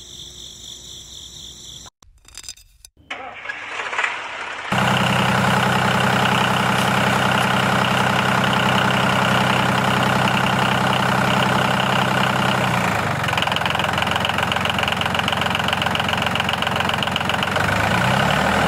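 Engine sound for a model tractor: after a few quiet seconds an engine starts suddenly about five seconds in and runs steadily, changing its note a little past the middle and dropping in pitch near the end.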